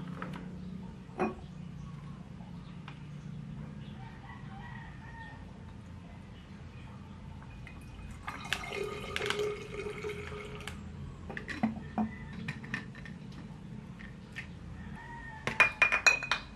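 Soy sauce poured from a sachet into a glass bottle, with soft liquid drips and handling, and a quick run of sharp clinks of glass jars and bottles near the end. A rooster crows in the background about halfway through.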